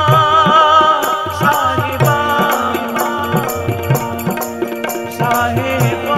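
Live Sikh kirtan music: a sustained, wavering melody over a steady tabla beat.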